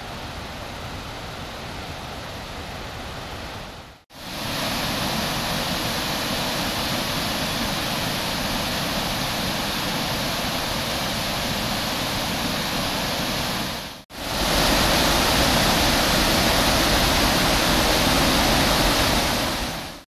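Steady rush of water from a creek and a partly frozen waterfall. It breaks off twice, about four seconds in and again ten seconds later, and comes back louder each time.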